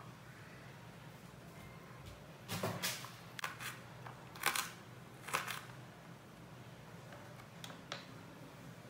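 Kitchen knife chopping green chillies on a glass plate: a run of short, sharp clicks of the blade striking the glass, bunched between about two and a half and five and a half seconds in, with two more near the end.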